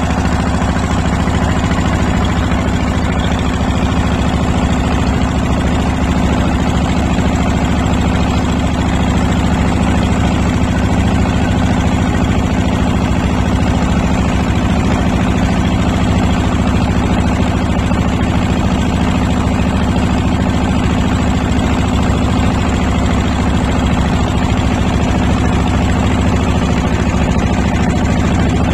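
Boat engine running loudly and steadily at an unchanging speed.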